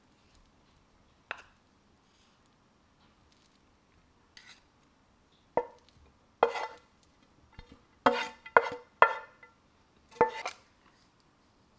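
Frying pan and utensils clinking and scraping against a ceramic plate as stir-fried noodles are tipped and pushed out onto it: scattered sharp clinks, the loudest a quick run of three around eight to nine seconds in.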